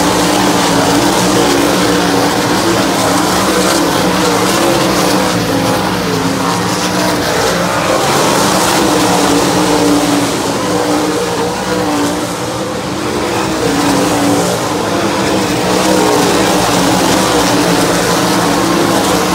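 A field of 410 sprint cars racing on a dirt oval: several methanol-burning 410-cubic-inch V8s running hard together, their pitch wavering up and down as cars pass, with a slight dip in loudness about twelve seconds in.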